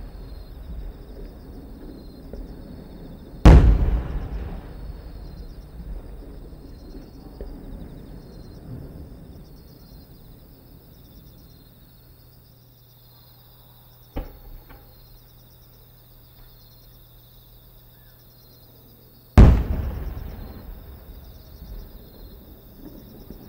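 Aerial firework shells bursting overhead: a loud boom about three and a half seconds in and another near the end, each rolling off in a long echo, with a smaller sharp bang in between. Insects chirp steadily underneath.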